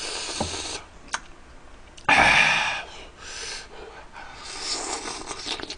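A man breathing hard in and out through the mouth, hissing air against the burn of spicy tteokbokki; the loudest breath comes about two seconds in, with softer ones before and after.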